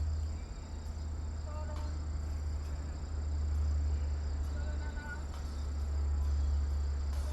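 Outdoor insect drone, a steady thin high tone like crickets, with a few short chirps twice over a strong low rumble.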